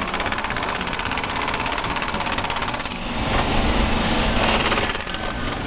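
Rapid mechanical hammering rattle of track-work power tools: a sleeper-screw driving machine on the rail fastenings, then from about three seconds in a louder hand-held ballast tamper working the ballast.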